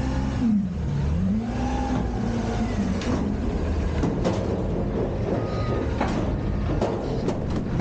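Front-loader garbage truck's engine and hydraulics working the lift arms to lower an emptied steel dumpster. A whine dips and rises in pitch in the first two seconds, then several metal clanks and knocks follow in the second half.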